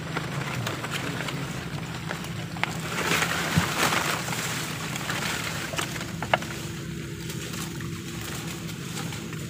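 River water sloshing and splashing against a wooden boat's hull as a gill net is hauled in by hand along the bank, with a louder splash about three seconds in and a couple of sharp knocks on the boat. A faint steady hum runs underneath.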